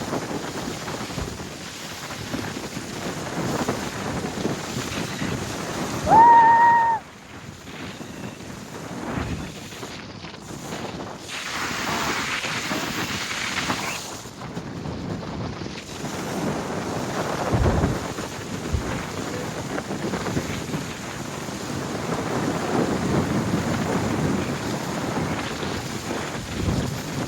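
Wind buffeting the microphone over rushing water, as from a moving boat. About six seconds in, one loud high tone rises briefly, holds for under a second and cuts off.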